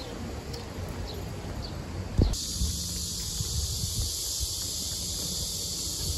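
Outdoor ambience: a low rumble with a few faint chirps, then a thump about two seconds in, after which a steady high-pitched insect chorus hisses over the low rumble.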